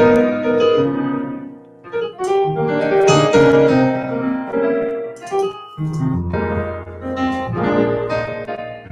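Piano playing jazz: chords over low bass notes, in short phrases.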